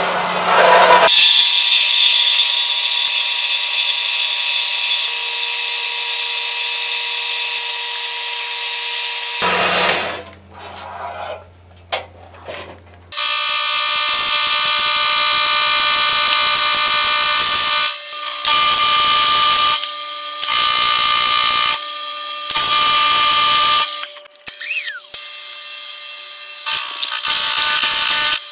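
A metal-cutting bandsaw runs through a steel block clamped in its vise for about nine seconds. After a short lull, a milling machine's face mill cuts across a steel block, with a steady machining noise that swells and drops several times.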